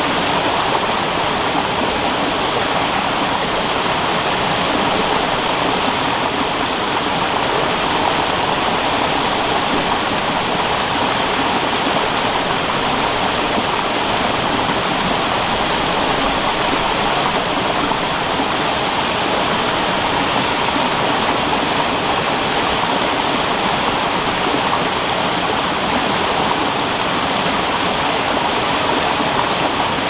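Waterfall: a steady, full rush of falling water.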